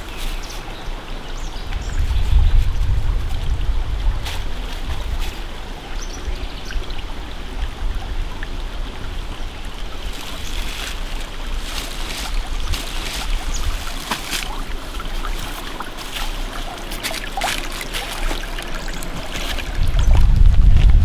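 A small forest stream trickling over stones, with scattered crackles of dry leaves and twigs. A low rumble comes in twice, a couple of seconds in and near the end.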